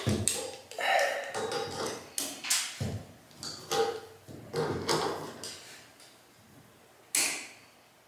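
Metal clicking and clinking of a wrench on the bar of a ceiling-fan support brace as the bar is given a last turn, already about as tight as it will go against the joists. Several clicks over the first few seconds, a pause, then one more click near the end.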